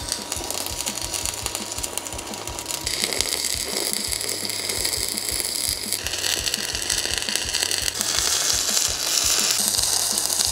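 Stick-welding arc crackling steadily as a 2.5 mm electrode lays a light, quick seal weld on steel girders. The crackle shifts in tone several times as the rod runs along the joint.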